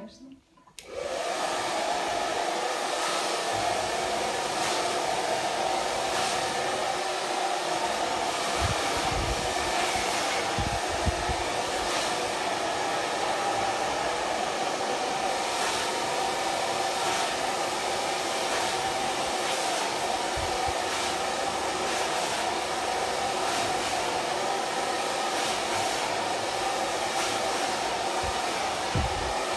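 Handheld hair dryer switched on about a second in, then running steadily with an even blowing hum as hair is blow-dried.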